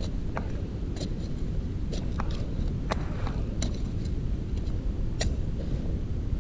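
Hand digging: sharp, irregular knocks of a digging tool striking earth and tubers, about one a second, over a steady low rumble.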